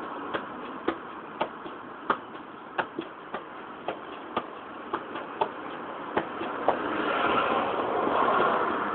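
Football being kept up with the feet: sharp taps of boot on ball about twice a second, stopping about two-thirds of the way in, over steady traffic noise that swells near the end.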